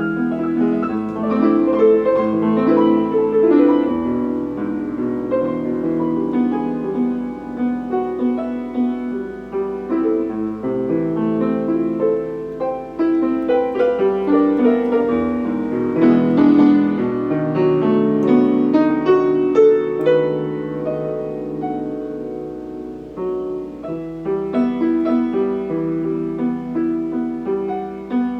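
Piano playing a continuous flowing piece of many overlapping notes, mostly in the middle register, demonstrating a Steinway piano tone. It eases a little quieter about three-quarters of the way through before picking up again.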